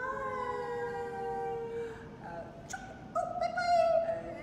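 A woman's voice in long, drawn-out sing-song tones: one note held for about two seconds, then shorter, higher and louder ones in the second half.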